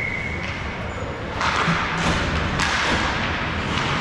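Ice hockey game sounds: sharp knocks, typical of the puck and sticks hitting the boards, over a wash of rink noise that grows louder about a second and a half in. A brief high steady tone sounds at the very start.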